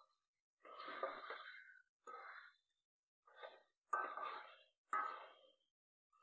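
Metal spatula scraping against a metal karai as browning chicken pieces are stirred through the oil, in about five separate strokes with short silences between.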